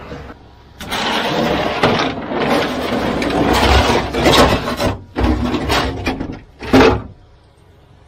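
Rubbing and scraping of gear being handled in the bed of a service truck, in several stretches, stopping abruptly about seven seconds in.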